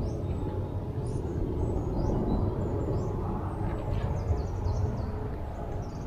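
Close handling noise and rustling as hands set a twig-and-cord bird snare among dry leaves and sticks, under a steady low rumble, with faint short high bird chirps scattered through.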